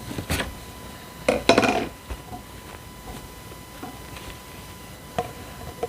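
Hard objects being handled: a sharp click, then a louder clatter with a short ring about a second and a half in, and another click near the end.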